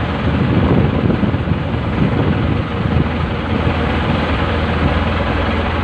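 Fishing boat's engine running steadily: a loud, even, low drone.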